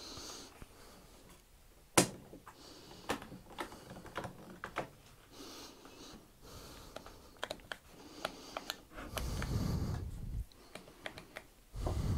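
Small knocks and clicks of tools and wood being handled on a workbench: one sharp knock about two seconds in, then scattered taps and clicks, with a low rumble lasting about a second near the end.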